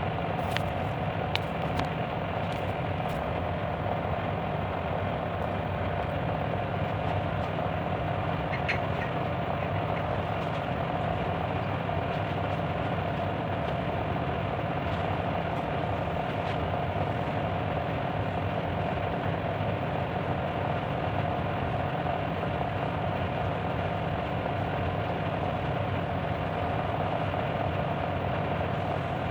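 Steady machine noise: an even hum and hiss with a constant mid-pitched tone, unchanging in level throughout, with a few faint clicks early on.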